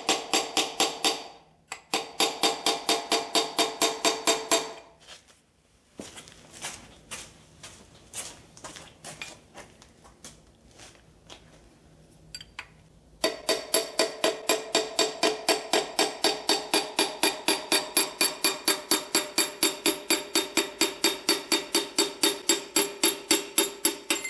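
Fast, steady hammer taps on a metal rod, about five a second, with a ringing tone, driving a piston and connecting rod out of a cylinder of a Ford 390 V8 block. The tapping stops about five seconds in, leaving a few scattered lighter taps, and starts again about thirteen seconds in.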